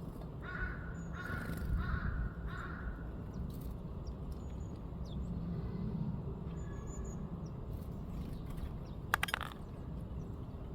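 A crow cawing four times in quick succession, harsh calls about half a second apart. A brief sharp clatter of clicks follows about nine seconds in.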